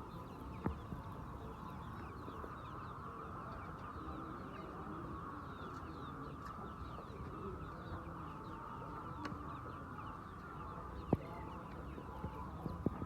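A flock of chickens clucking and chirping together in a steady din of many overlapping calls, with a couple of sharp clicks.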